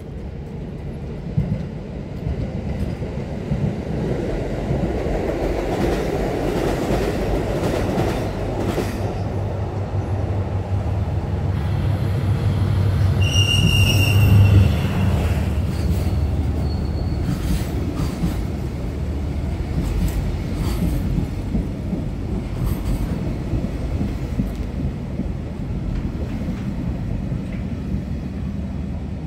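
A DF200 diesel-electric freight locomotive approaches and passes close by, its engine running loudest about halfway through, with a brief high squeal as it comes alongside. The freight wagons follow, rolling past with wheel clatter and fading slowly.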